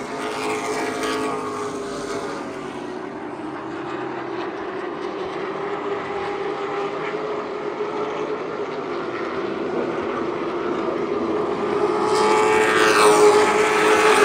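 Virginia Racer division stock cars racing around a short oval: a steady drone of engines from across the track, growing louder about twelve seconds in as the pack comes past, with pitch sweeping as the cars go by.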